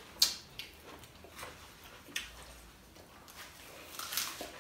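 Eating sounds close to the microphone: a few sharp wet mouth smacks and clicks as orange slices and crackers are bitten and chewed, with a longer slurping suck about four seconds in.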